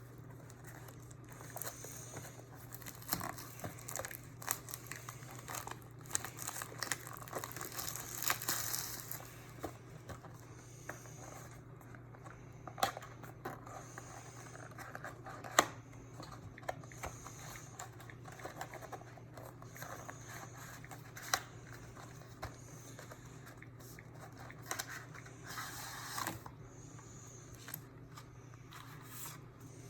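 Plastic wrapping on a trading-card box being torn and crinkled as the box is unsealed and opened, with scattered sharp clicks and taps of cardboard and packaging being handled.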